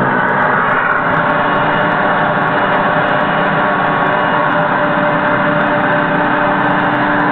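Steady running noise of construction machinery at a roll-off dumpster, like a truck engine, with a steady hum coming in about halfway through. It is heard played back from videotape through a television speaker.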